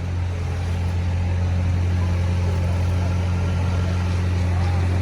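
An engine running steadily at idle: an even, low hum.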